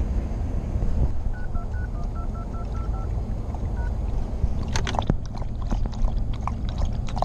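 Touch-tone keypad beeps of a phone being dialed, about ten short tones in quick succession, over a steady low rumble of roadside traffic and wind; a few sharp clicks and knocks follow.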